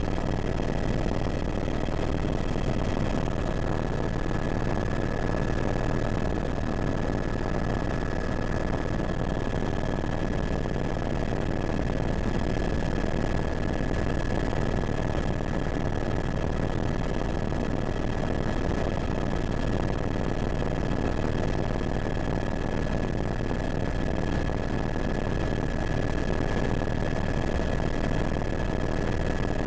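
Helicopter running steadily: a dense low drone with a constant high whine on top, unchanging throughout.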